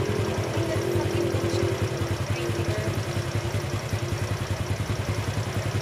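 Small engine idling steadily, a rapid, even low pulse.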